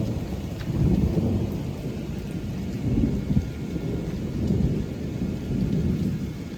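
Continuous low thunder rumbling in a strong thunderstorm, swelling louder about a second in and again around three, four and a half and six seconds, with rain falling underneath.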